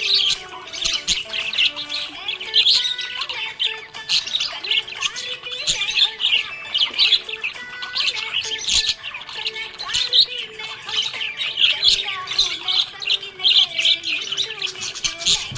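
Budgerigars chirping and chattering continuously in rapid, high-pitched twitters, with a background music tune running underneath.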